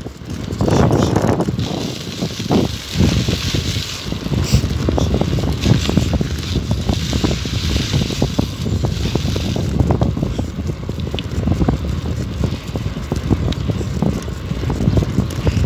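Wind buffeting the microphone of a camera carried on a moving bicycle, a loud, gusty rumble that rises and falls unevenly.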